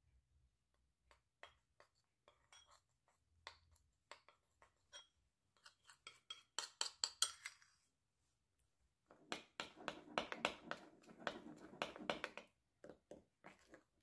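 Metal spoon scraping and clinking against ceramic bowls as melted chocolate is scraped out of one bowl and stirred into thick cheesecake batter. A short run of quick scrapes comes about six and a half seconds in, and a longer, denser stretch of stirring and scraping comes about nine seconds in.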